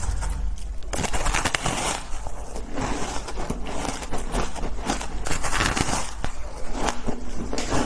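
Block of shaved ice being bitten and chewed, crunching in a series of bursts.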